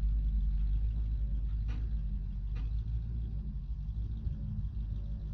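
Ford F600 dump truck's engine running steadily with a low rumble, with two brief knocks near the middle.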